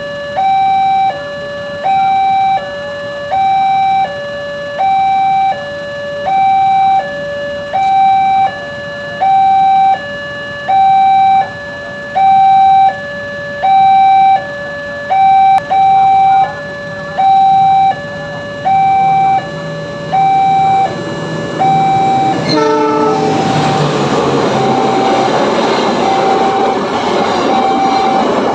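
Railroad crossing warning alarm sounding a two-tone signal, alternating high and low about every three-quarters of a second, the signal that a train is approaching. About 22 seconds in a passing train's loud rushing rumble rises over it, and the alarm keeps sounding underneath.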